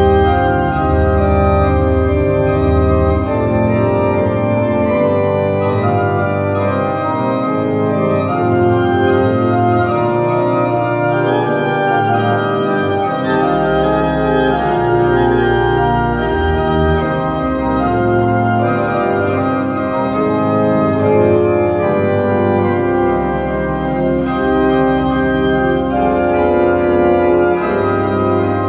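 Small pipe organ (positive organ) playing a chorale improvisation in sustained chords over a low bass, registered with bourdon, montre, doublette and nazard stops.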